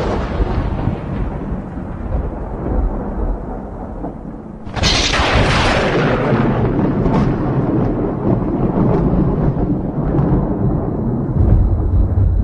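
Thunder sound effect: rumbling thunder, then a second sharp crack about five seconds in that trails into long low rumbling, which swells again near the end.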